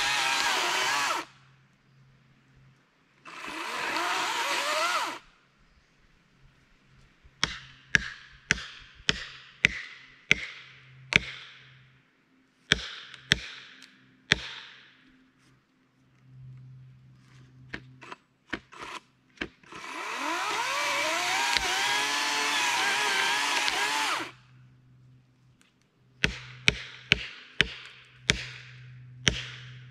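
Battery electric chainsaw cutting into a hemlock trunk in three bursts: one that stops about a second in, a short one around four seconds, and a longer cut of about four seconds past the middle, its motor pitch dipping and recovering under load. Between the cuts come runs of sharp single blows, one or two a second, each with a brief ringing tail.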